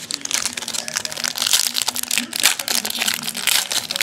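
Foil wrapper of a trading card pack crinkling and tearing as it is ripped open by hand.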